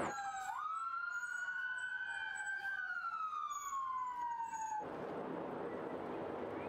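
Emergency vehicle siren wailing: its pitch climbs over the first few seconds, then glides down, and it cuts off abruptly about five seconds in, leaving steady background noise.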